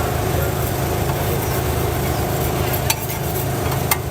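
Steady low rumble and hiss of a busy street food stall, with a couple of sharp clinks about three and four seconds in.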